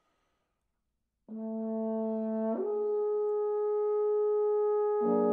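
Overdubbed French horn sextet entering after about a second of silence with a soft, sustained held note. The note steps up to a higher held pitch about halfway through. Lower horns come in near the end, filling out the sound into a chord.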